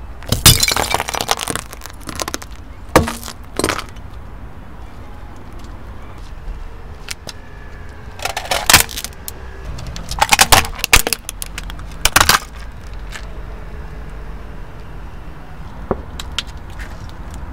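Hard, brittle objects cracking and crunching under a car tyre in several bursts of snapping and breaking, the biggest near the start and in the middle, over a low steady rumble.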